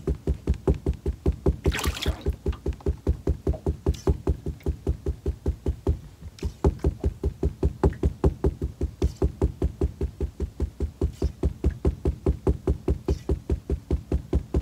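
A fishing reel working while a jig is let down to the bottom about 40 feet below, giving a steady run of low knocks, about five a second. The run breaks briefly about halfway through. One sharper rustling click comes about two seconds in.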